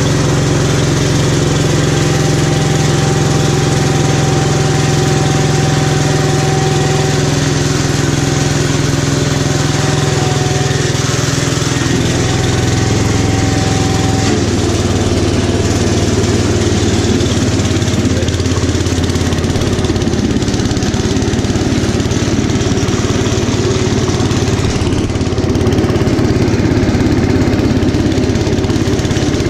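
Kohler K241 10 hp single-cylinder engine of a 1972 Gravely Commercial 10A tractor running steadily just after a cold start on choke. About halfway through, its steady note steps down and the sound turns rougher and busier.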